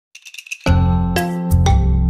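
Background music: a quick run of tinkling high notes, then bright struck notes over a steady bass come in under a second in.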